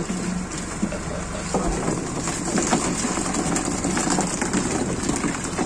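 Fishing boat's engine running steadily, with water splashing and pattering off a landing net hauled aboard, and small fish pattering on the wet deck.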